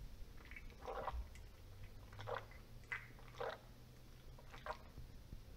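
A person gulping a canned drink straight from the can: several faint swallows at irregular intervals, roughly a second apart.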